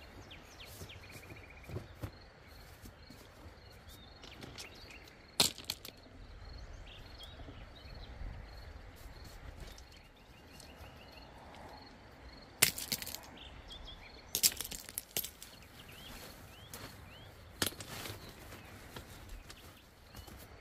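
River pebbles clacking and shifting under knees and hands as someone kneels and moves about on a stone beach, with several sharp knocks of stone on stone spaced a few seconds apart.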